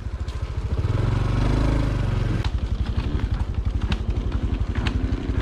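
Motorcycle engine running at idle with an even low pulse. It revs up briefly about half a second in and settles back to idle near two seconds in, with a few light clicks or knocks over it.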